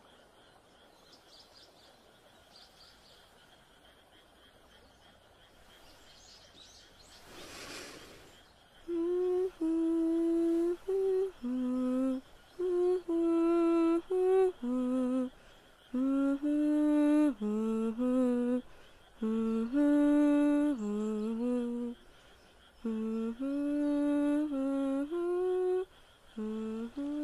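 A girl humming a slow melody of held notes in short phrases, starting about nine seconds in. Before that there is only faint outdoor ambience with a steady high tone, and a brief rush of noise just before the humming begins.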